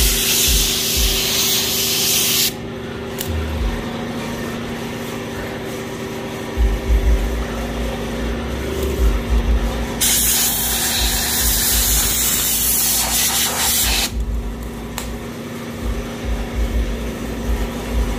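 Compressed-air blow gun blasting water off a car's paint: a loud hiss for about two and a half seconds at the start, then again for about four seconds in the middle. Between the blasts a quieter hiss and a steady hum continue.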